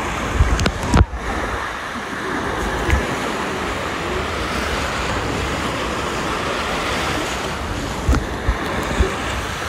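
Machine-made waves in a wave pool churning and sloshing in a steady rush of water, with wind on the microphone. A few low thumps come about a second in and again near the end.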